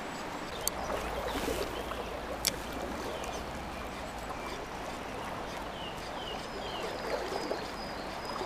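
River water flowing steadily over a shallow, riffled stretch. A couple of sharp clicks and a few short, high, falling chirps sound faintly over it.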